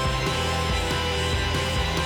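Background music with sustained tones over a changing bass line.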